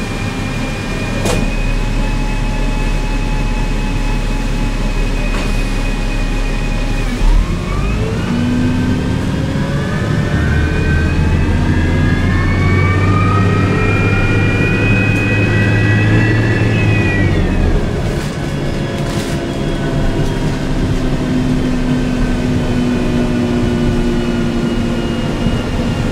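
1998 New Flyer C40LF bus with a Cummins C Gas Plus engine modified to burn a hydrogen–natural gas blend, heard from inside the passenger cabin. It runs steadily with a high whine, then gives a short knock about seven seconds in and accelerates: several whining tones rise in pitch together for about ten seconds, then fall away as it eases back to a steady run.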